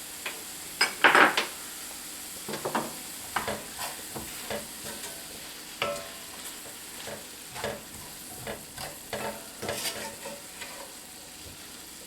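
A utensil stirring and scraping through sausage, onion and spices in a cast iron skillet, in irregular strokes, the loudest about a second in, over a steady sizzle of the frying mixture.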